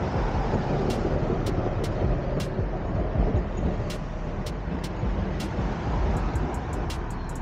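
Bus engine and road noise: a steady rumble with scattered sharp clicks.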